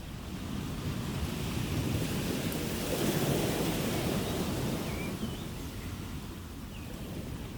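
Ocean surf: a wave swells in, peaks about three seconds in and washes back out.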